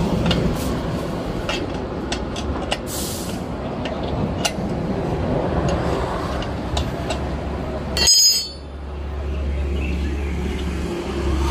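Small air compressor's check valve being worked loose with a ring spanner: scattered sharp metal clicks over a steady low hum. About eight seconds in comes a short, loud whistling hiss, after which the sound drops to the low hum.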